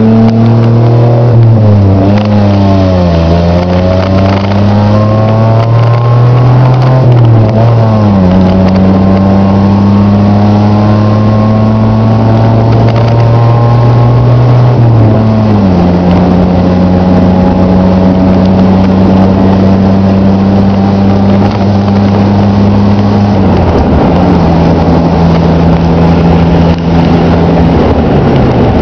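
Car driving along a dirt road, heard from inside the cabin. The engine runs with its note rising and falling at first, then holding steady and stepping down in pitch three times, over a steady rush of tyre and wind noise.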